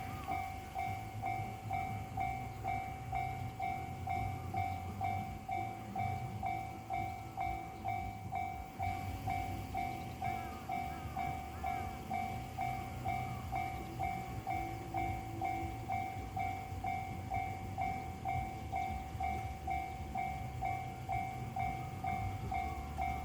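Japanese railway level-crossing warning bell ringing steadily in an even, rapid series of electronic dings, a little more than two a second. A low train rumble runs underneath.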